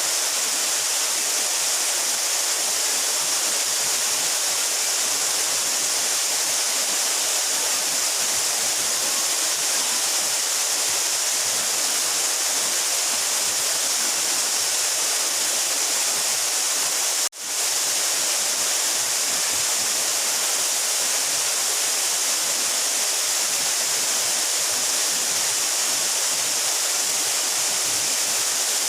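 12-metre mountain waterfall pouring steadily, an even hiss-like rush of falling water. It briefly drops out once about two-thirds of the way through.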